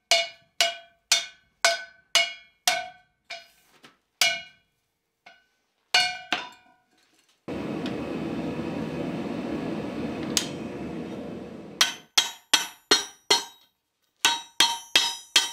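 Hand hammer striking hot steel bar stock bent around a steel cone mandrel: ringing metal blows, about three a second for four seconds, then a few scattered blows. Near the middle a steady rushing noise lasts about four seconds, then ringing hammer blows start again over a cylindrical steel mandrel.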